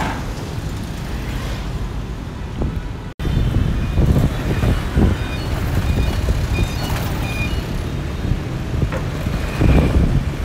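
Outdoor street traffic with wind buffeting the microphone. The sound drops out abruptly about three seconds in, then comes back louder and more uneven.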